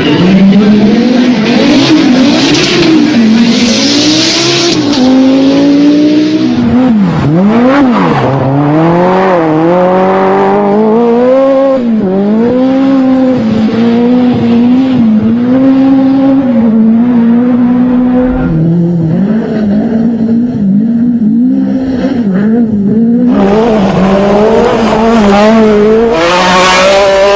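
Group B rally car engine driven hard, loud throughout, its pitch repeatedly climbing and dropping back as it revs up and comes off the throttle.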